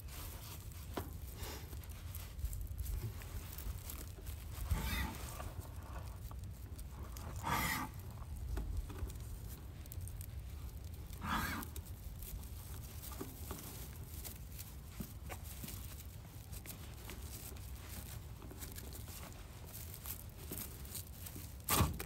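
Rustling and scraping of a red lay-flat hose and cord being handled, with three brief rustles in the first half and a sharp knock near the end, over a low steady rumble.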